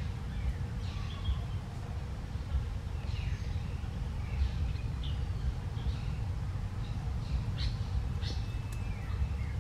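Wild birds chirping with short, scattered calls over a steady low rumble.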